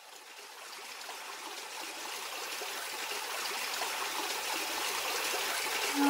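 Running water, like a stream, as a steady rushing noise that fades in and grows gradually louder.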